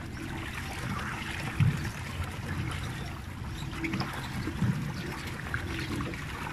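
Water trickling and churning around a pedal-driven water bike as it is pedalled across a lake, with a couple of dull low thumps.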